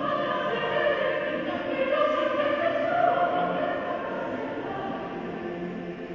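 Mixed choir of women's and men's voices singing held chords together, swelling about halfway through and growing quieter over the last few seconds.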